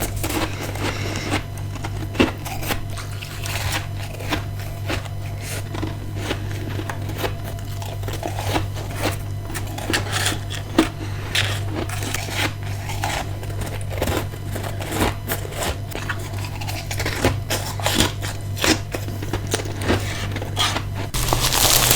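Close-miked biting and chewing of ice, a rapid run of crisp crunches and crackles over a steady low hum. The crunching grows louder and denser near the end.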